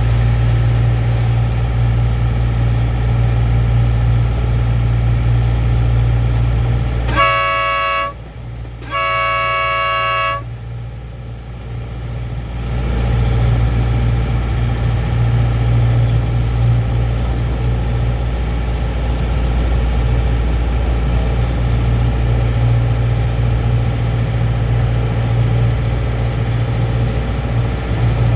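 Small locomotive engine running steadily under the cab. About a quarter of the way in, its horn sounds twice, a short blast then a longer one, several tones at once. The engine note dies down around the horn and picks up again a few seconds later.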